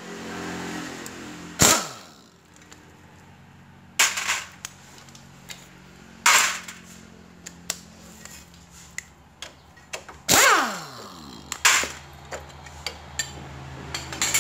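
Impact wrench with a 14 mm socket firing in five short bursts to loosen bolts, some bursts trailing off as the motor winds down, with small clicks of handling between.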